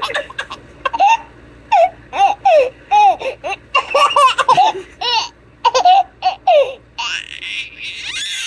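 One-year-old baby laughing in many short, high-pitched giggles and squeals. Near the end a rush of hiss comes in, as the fountain's water splashes off his hand.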